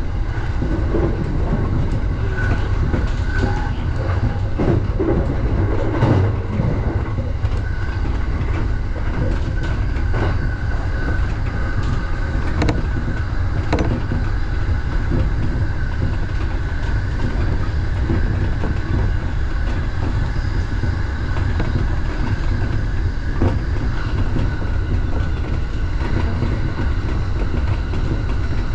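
Electric commuter train running at speed, heard from inside the driver's cab: a steady rumble of wheels on rail with scattered clicks over rail joints and points, heavier in the first several seconds, and a faint steady high whine.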